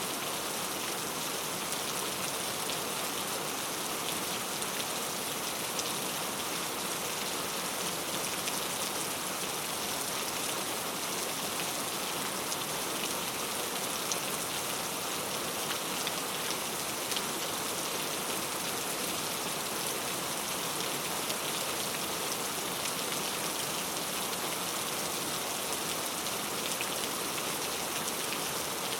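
Steady rain falling on hard surfaces, an even hiss with many fine drop patters throughout.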